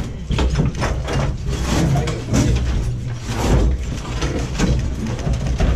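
Repeated knocks, bumps and scraping of boards and bodies as a man climbs in through the gap above a barricaded door, over a low rumble.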